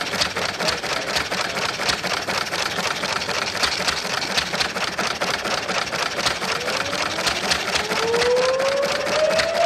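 Old hit-and-miss stationary engine running, giving a rapid series of sharp pops and clicks. In the second half a separate whine rises slowly in pitch.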